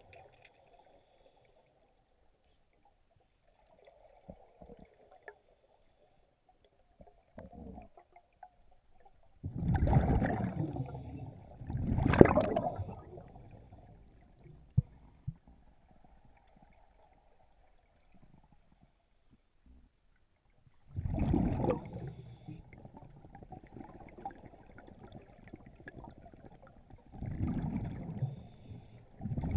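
Scuba diver breathing through a regulator underwater: about five loud gurgling rushes of exhaled bubbles, the first about ten seconds in and the rest spread through the second half, with a faint hiss between them.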